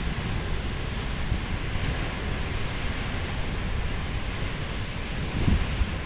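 Pacific Ocean surf breaking on shoreline rocks: a steady rushing wash of waves and spray. Wind buffets the microphone with low thumps about five and a half seconds in.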